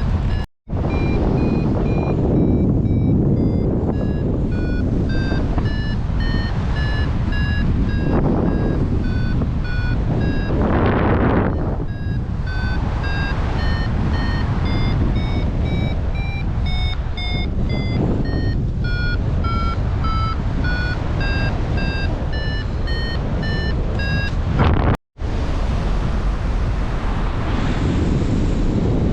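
Paragliding variometer beeping a quick, steady run of short tones whose pitch wanders up and down, signalling that the glider is climbing, over loud wind noise on the microphone. The sound cuts out briefly twice, and after the second break, near the end, only the wind is left.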